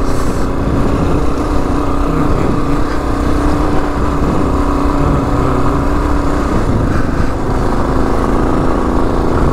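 A Kawasaki KLR 650's single-cylinder engine, fitted with a Lexx slip-on exhaust, running steadily under way, over a heavy low rumble of wind on the microphone.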